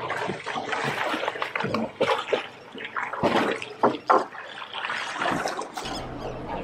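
Sea water splashing and sloshing in irregular bursts as albatrosses flap and scramble on the surface.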